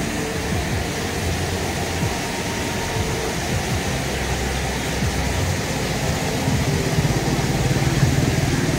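Loud, steady rush of river water pouring through a dam, with a low rumble underneath.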